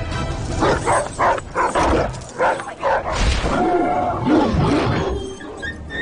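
A dog barking repeatedly over film soundtrack music.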